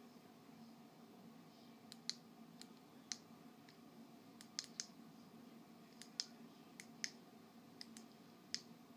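About a dozen short, sharp clicks at irregular intervals, starting about two seconds in, over a faint steady low hum.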